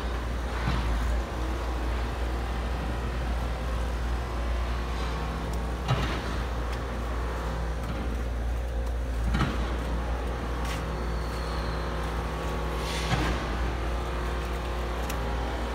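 A motor engine running steadily, with a low, even drone. Four short knocks or scrapes stand out over it, about every three to four seconds.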